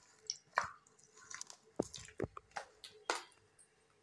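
Sticky rice-flour dough squelching: quiet, scattered soft wet clicks and smacks at irregular spacing.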